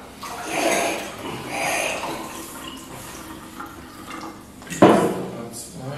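Mineral water poured from a bottle into glasses, in two short pours. About five seconds in comes a sharp knock, the loudest sound.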